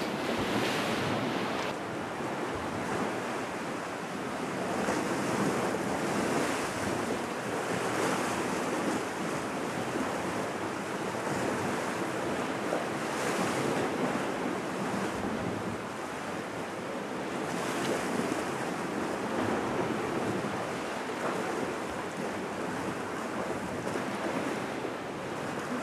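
Sea waves washing against the rocks below, swelling and easing every few seconds, with wind buffeting the microphone.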